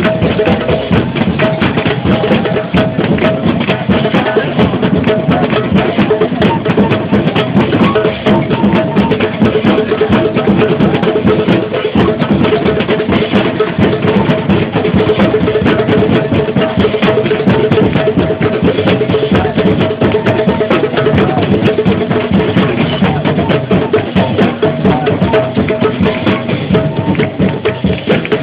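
Protest crowd drumming: many drums and hand percussion struck together in a dense, unbroken rhythm. Steady held tones run underneath.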